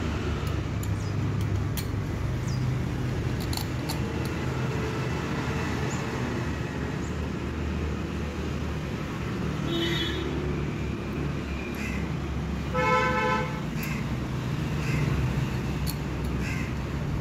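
Steady background road-traffic rumble with a short vehicle horn toot about thirteen seconds in, the loudest sound. A few faint clicks of small carburettor parts being handled.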